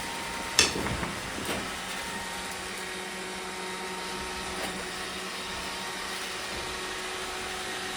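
Roomba robot vacuum running with a steady hum and whine. A sharp click about half a second in and fainter clicks a second and about four seconds later.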